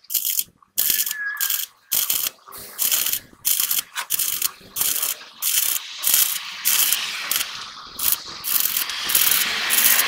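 Metalwork on a truck axle housing under weld repair: short, irregular scraping and crackling bursts, roughly two a second, with brief gaps between them.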